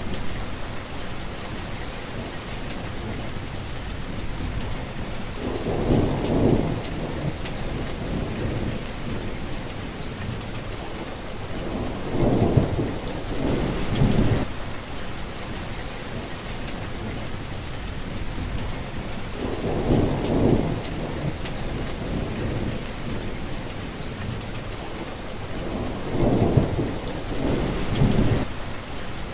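Steady rain falling on plants, with low rumbles of thunder rising and fading four times, roughly every six to seven seconds.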